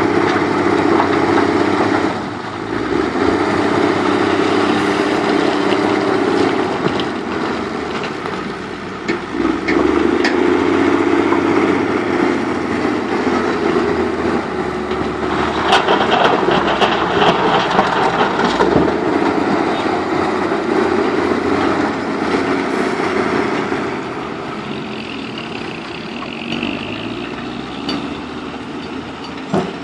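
Heavy diesel engine of a construction machine running under load, its drone rising and dipping every few seconds, with a louder, rougher stretch about halfway through.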